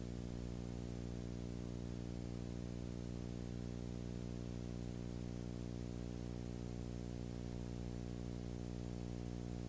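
Steady electrical hum, a low drone with many overtones over a faint hiss, unchanging throughout; the Super 8 film itself is silent, so this is noise from the recording chain, not any sound of the scene.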